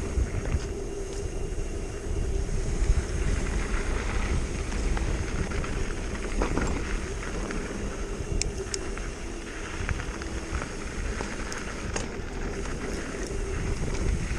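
A mountain bike ridden along a dirt trail: plus-size knobby tyres rolling over dirt, with wind on the microphone and a few sharp clicks and rattles from the bike over bumps.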